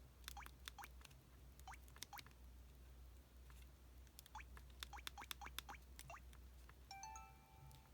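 An EV-W420 Ever Slim Panther mobile phone sound effect played faintly through its speaker: a scattered run of quick, falling plinks like water dripping, over a low hum.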